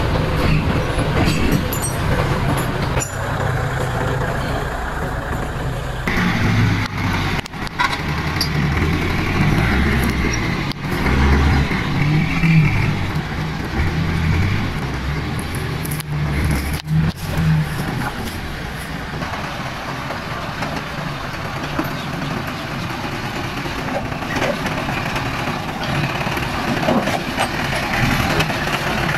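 Pickup truck engine running, with an uneven low throb, and people's voices in the background.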